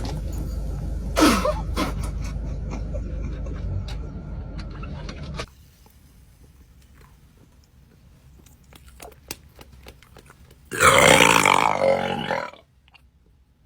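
Burping: a long, low rumbling sound that cuts off about five seconds in, then after a quiet pause a loud burp about two seconds long near the end.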